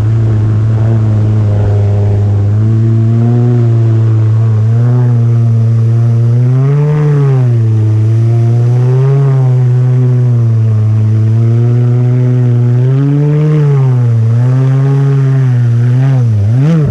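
Kawasaki SX-R 1500 stand-up jet ski's four-stroke four-cylinder engine running hard under way, its note rising and falling several times as the throttle is worked, with a quick double surge near the end. A hiss of spray and water runs beneath it.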